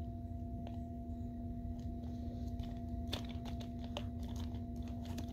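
Faint clicks and knocks of a plastic Siats meekerorum action figure being handled, a few of them close together about three seconds in, over a steady low hum.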